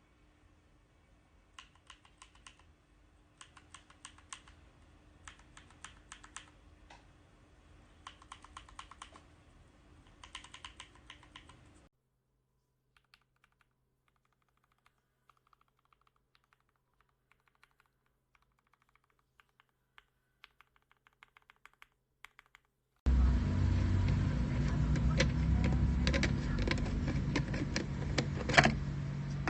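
Typing on a mechanical keyboard fitted with Gateron Milky Yellow Pro linear switches: quiet bursts of keystroke clicks, fading to scattered faint clicks midway. In the last few seconds a much louder stretch with a steady noisy background and more clicks comes in.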